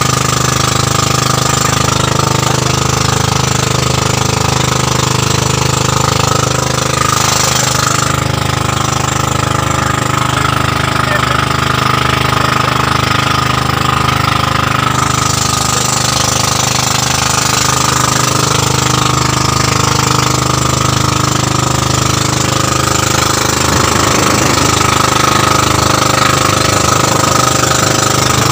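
Outrigger pumpboat's engine running steadily under way, loud and unbroken, with water rushing past the hull.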